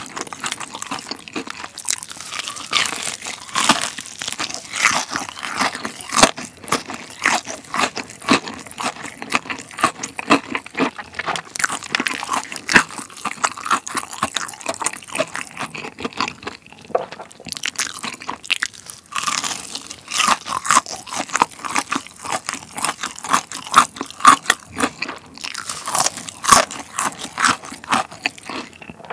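Close-miked biting and chewing of a Lotteria Jipai, a large Taiwanese-style fried chicken cutlet: dense, steady crunching of the crispy breading, briefly thinner a little past halfway.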